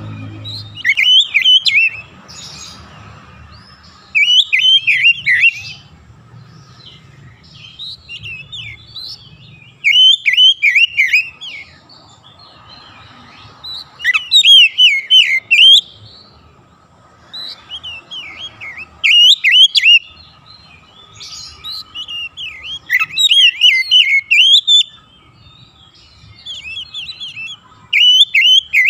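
Oriental magpie-robin (kacer) singing in loud bursts of fast, varied whistles and chattering notes, a new phrase every few seconds, in full song.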